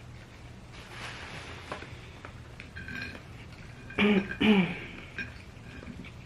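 A person eating gives two short coughs in quick succession, clearing the throat, about four seconds in. Faint clicks of eating come before them.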